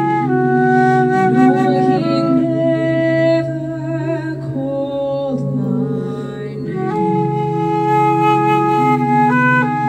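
Ambient trance music led by a flute playing long held notes that step from pitch to pitch over a steady low drone.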